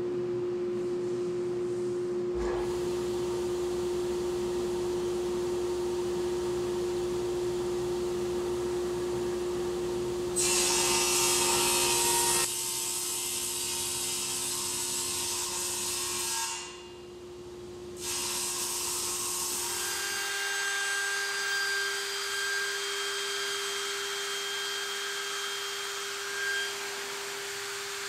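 Woodworking machines running: a table saw hums steadily, with a louder stretch of the blade cutting through wood about ten seconds in. From about twenty seconds a different machine takes over, a CNC router spindle running with a steady hum and a high whine.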